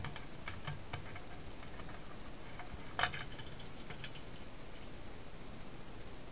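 A fishing spear worked in shallow stream water: light splashes and clicks in the first second and a half, then a single sharp knock about three seconds in, over a steady hiss.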